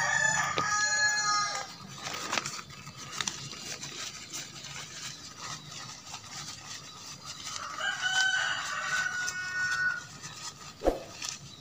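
A rooster crowing twice: one crow at the start lasting under two seconds, and a second, longer crow about eight seconds in. Between them come faint clicks and rustles of the tent being handled, and a single sharp knock near the end.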